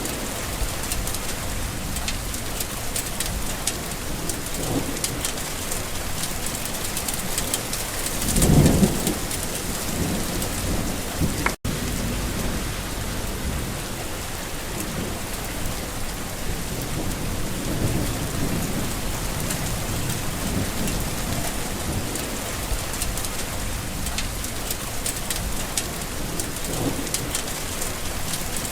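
Steady rain falling, with low rolls of thunder swelling and fading under it; the loudest roll comes about a third of the way in. The sound cuts out for a split second a little later.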